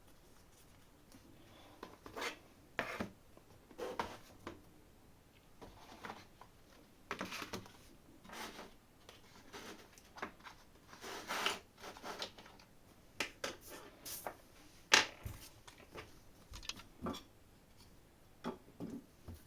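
Small objects being picked up, moved and set down on a desk: scattered light knocks, scrapes and rustles at irregular intervals, with one sharper knock about fifteen seconds in.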